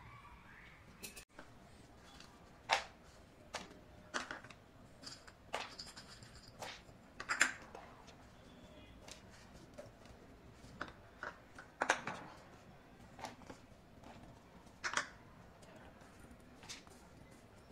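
Scattered light clicks and taps, roughly one every second or two at irregular intervals, as small serving bowls are handled and dry chopped nuts and candied fruit are tipped into a plastic mixing bowl.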